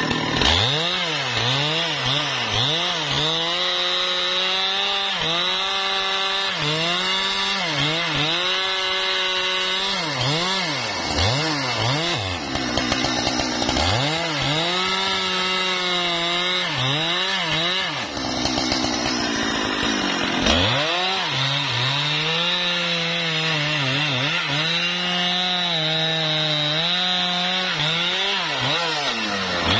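Husqvarna 395 XP two-stroke chainsaw running at high speed while cutting wood. Its engine pitch dips and recovers again and again as the chain loads in the cut, with a longer drop a little past halfway.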